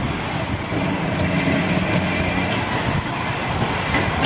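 Open-top double-deck electric heritage tram running on street rails as it approaches: a steady rumble of wheels and running gear, with a couple of faint wheel clicks.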